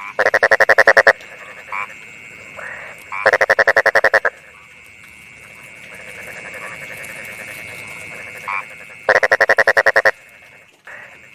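Frog calling: three loud pulsed croaks, each a rapid train of clicks lasting about a second, spaced several seconds apart. A steady high-pitched background chorus runs beneath them.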